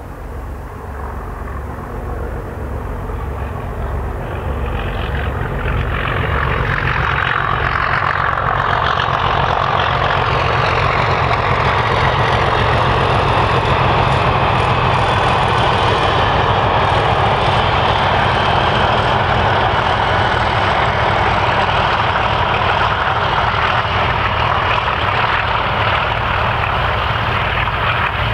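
Two English Electric Class 37 diesel locomotives passing under power, their V12 engines working hard. The sound builds over the first several seconds, then stays loud and steady.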